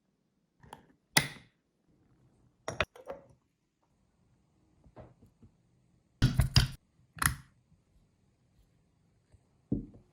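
Scattered knocks and clicks of kitchen utensils and dishes being handled, with a quick cluster of several sharp knocks about six seconds in and another single knock near the end.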